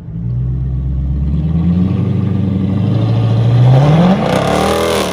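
Car engine accelerating under hard throttle, its pitch climbing slowly at first and then sweeping up quickly about three and a half seconds in, loudest around four seconds, before falling away near the end.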